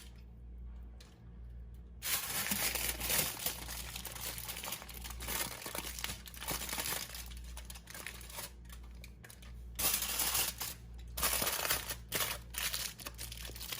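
Aluminium foil crinkling and crackling as it is folded and pressed by hand around a whole chicken, starting about two seconds in and going on with a couple of short pauses.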